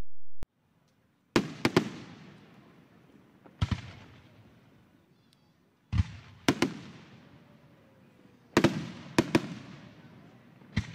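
Aerial firework shells bursting: five clusters of sharp bangs, one to four in each, every two to three seconds. Each cluster trails off in a long rumbling echo.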